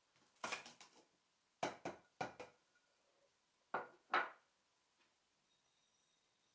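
Hard plastic clacks and knocks as a plastic mini-chopper bowl and its lid are handled on a wooden table: a short clatter in the first second, three quick knocks about two seconds in, and two sharper knocks about four seconds in.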